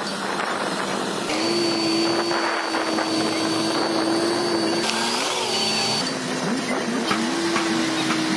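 Bulldozer engines running with a steady whine. The sound changes abruptly about a second in and again around six seconds.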